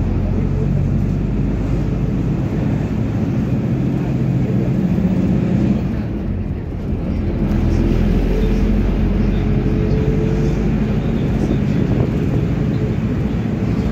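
PAZ-320402-04 bus running along the street, heard from inside the passenger cabin: a steady low engine rumble over road noise. The engine note dips briefly about halfway through, then picks up again.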